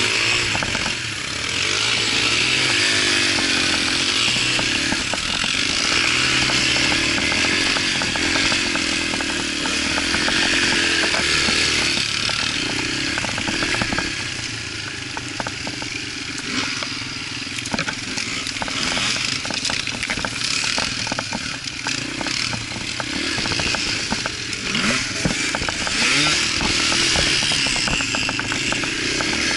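Yamaha TT-R125 dirt bike's air-cooled single-cylinder four-stroke engine running under way, revving up and down as the throttle opens and closes, with wind rushing over the microphone. Short rattles and knocks come through over the rough ground in the second half.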